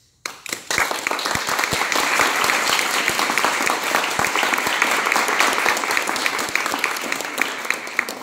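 Audience applauding, starting suddenly a moment in and going on steadily, with many separate hand claps audible.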